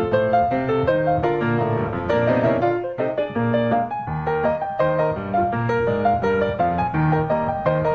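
Solo piano playing ragtime, quick melody notes over a bass line.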